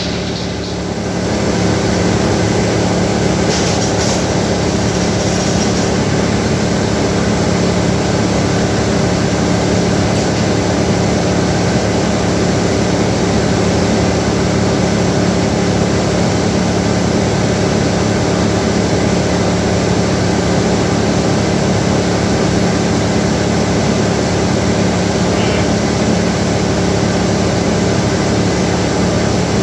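Sawmill machinery running steadily with a constant engine hum, dipping briefly about a second in.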